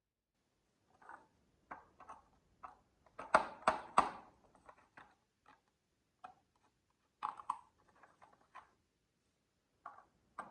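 Marbles and toy vehicles clacking and rolling along a wooden HABA marble run: irregular knocks and clicks, with a burst of loud clacks about a third of the way in and a few more later.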